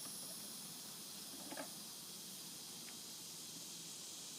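Faint steady hiss, with a soft short knock about a second and a half in and a fainter tick a little later.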